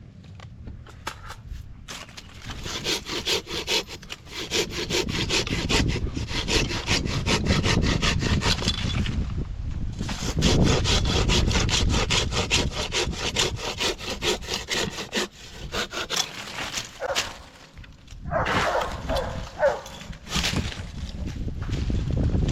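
Hand saw rasping through an oak limb in steady strokes.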